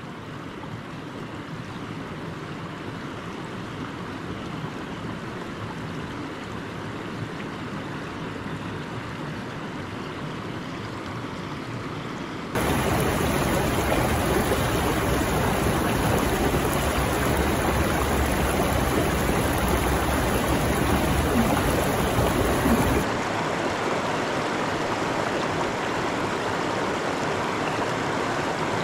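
River rapids rushing, a steady even noise of moving water. It jumps abruptly louder and brighter about twelve seconds in and falls back to a lower level about ten seconds later.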